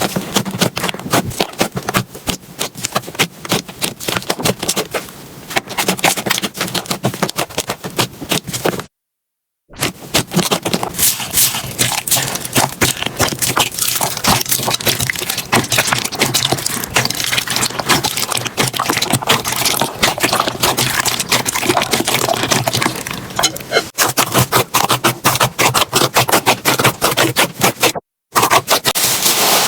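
Slime being handled, making dense, fast crackling and popping clicks. The sound cuts out briefly about nine seconds in and again near the end.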